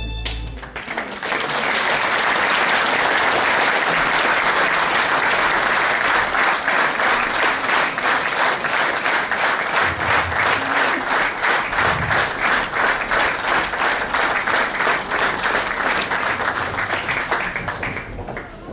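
Audience applauding: a burst of clapping that about six seconds in falls into rhythmic clapping in unison, then dies away near the end.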